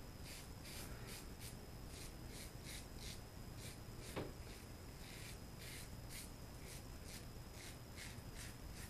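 Faint scratchy strokes of a RazoRock German 37 slant double-edge safety razor cutting stubble through shaving lather, short strokes at roughly two a second. One slightly louder brief sound about four seconds in.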